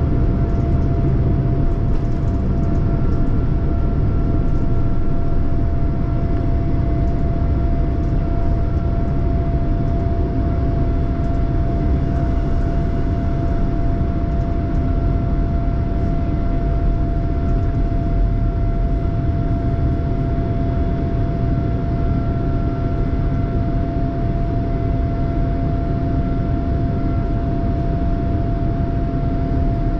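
Cabin noise of a Boeing 787-9 at takeoff power: a steady low rumble and rush of air, with a constant mid-pitched engine whine.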